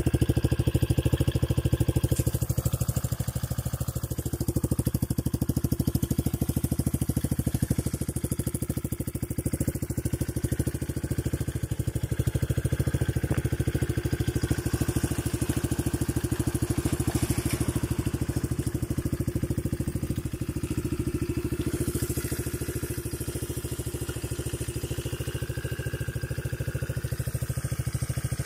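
The SSSR Core Auto pit bike's 125 cc air-cooled single-cylinder four-stroke engine idling steadily.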